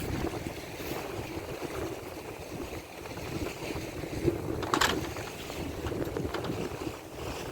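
Wind buffeting the microphone over the wash of the sea, with one brief sharp sound near the middle.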